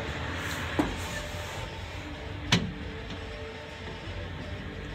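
Handling sounds inside a truck cab: a soft knock about a second in and a sharp click about two and a half seconds in, over a steady hum.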